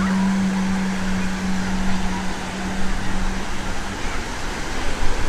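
A steady low motor hum that fades away about three and a half seconds in, over a constant wash of outdoor background noise.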